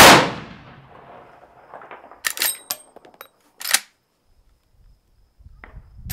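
A single .45-70 rifle shot, a 405-grain hard-cast load set off by a magnum pistol primer: a loud report with its echo dying away over about a second. A few sharp clicks follow about two and a half seconds in, and again near four seconds.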